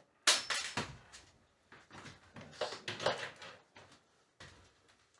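Handling noise of tools and hardware: a sharp knock about a quarter-second in, followed by several irregular knocks and scrapes.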